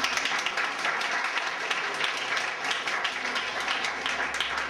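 A small crowd of guests applauding, many hands clapping at an irregular pace.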